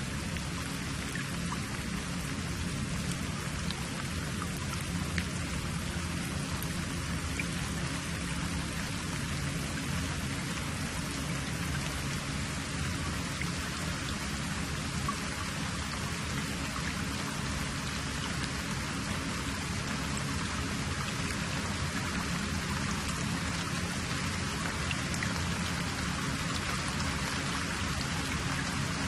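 Steady even hiss over a low hum, with a few faint scattered ticks.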